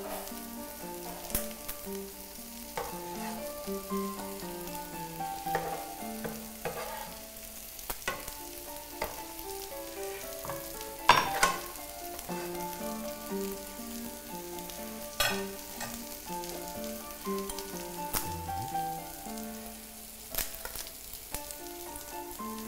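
Burger patties sizzling as they fry in oil, with sliced peppers and onions being stir-fried in a second pan. Utensils clink and scrape against the pans every few seconds; the loudest clack comes about eleven seconds in.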